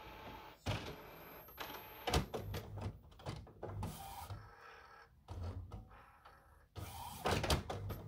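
Epson WorkForce WF-7710 inkjet printer's mechanism working in short stop-start spells of mechanical noise and clicks during a firmware update, with brief pauses between spells.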